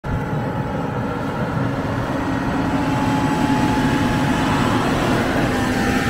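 John Deere combine running steadily while harvesting wheat: a constant engine and machinery drone with a steady hum.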